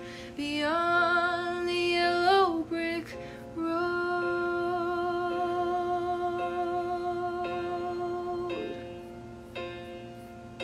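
A woman singing solo, a short rising phrase and then one note held for about five seconds. Near the end the singing drops away and grows faint as she becomes too emotional to carry on.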